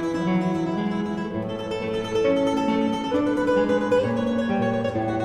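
Solo classical guitar music: a slow melody of plucked, ringing notes.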